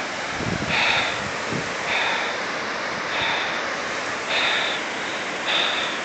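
Steady rush of the Firehole River's whitewater rapids, with heavy breathing puffs about once a second from someone out of breath after climbing a steep slope.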